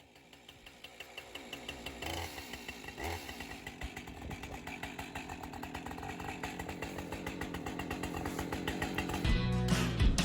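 Small gasoline engine running with a fast, even firing rhythm that grows steadily louder. It is the sound of a chainsaw or of the sawmill's engine.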